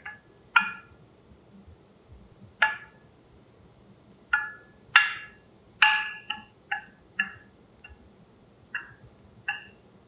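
A hard window plate being handled on a table: about a dozen sharp clinks and taps at uneven intervals, each with a short ring. The loudest two come about five and six seconds in.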